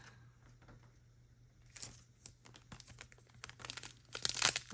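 Pokémon card booster pack wrappers crinkling and cards being handled: scattered small clicks and rustles that grow busier and louder near the end.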